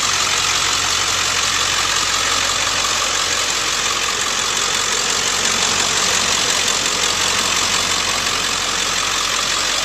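Ford 7.3 L Power Stroke V8 turbo-diesel idling steadily with its diesel clatter.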